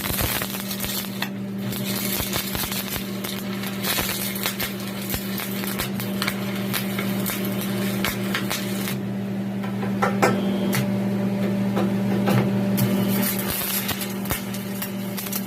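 Electric welding on a metal wheel rim: the arc crackles and spatters in irregular clicks over a steady low hum.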